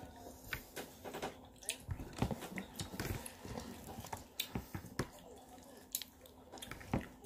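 A child eating noodles with a metal fork: chewing and mouth sounds broken by many irregular sharp clicks.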